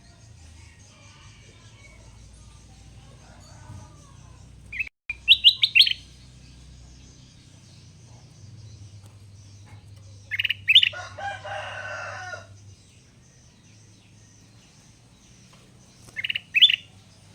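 A caged kutilang emas bulbul singing in three short bursts of loud, rising whistled notes, about five, ten and sixteen seconds in; the middle burst runs into a rougher, scratchy chatter for a couple of seconds.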